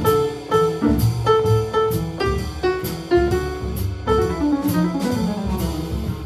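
Jazz piano trio playing: upright piano chords and runs over a walking double bass, with the drum kit keeping time on the cymbals.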